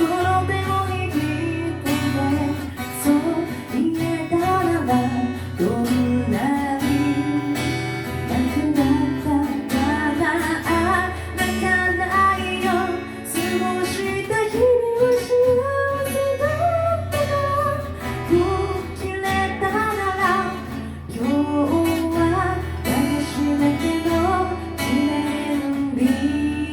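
Live music: a voice singing a melody over strummed acoustic guitar.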